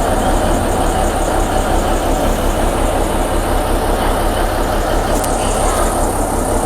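Alishan Forest Railway locomotive's engine idling steadily with a low, even throb.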